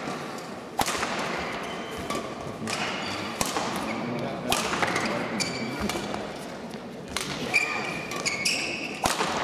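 Badminton singles rally: rackets striking the shuttlecock in sharp hits about once a second, with thuds of players' feet on the court.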